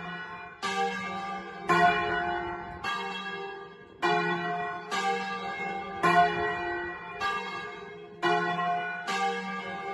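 Two swinging bronze church bells, the F3 bell cast by Luigi Magni in 1948 and the G3 bell cast by Luigi and Raffaello Magni in 1853, ringing a Lucchese 'doppio'. They strike about once a second, each stroke ringing on under the next. Heard close up from beneath the bells in the bell chamber.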